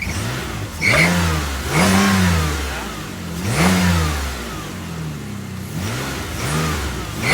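Pontiac G6 engine revved in about five quick throttle blips, each rising and falling in pitch, with the squeal it makes on acceleration. The squeal is still there with a new serpentine belt and new tensioner and idler pulleys.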